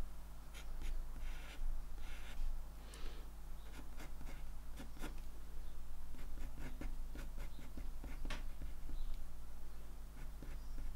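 Pencil scratching on paper in short, quick sketching strokes as an animal outline is drawn.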